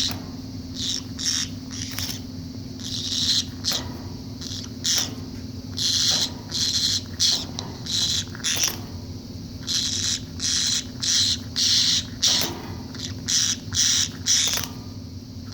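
Pet conure making a strange, repeated sound: short, high, raspy bursts, several a second, coming in runs with brief pauses between them. The owner does not know what the sound means.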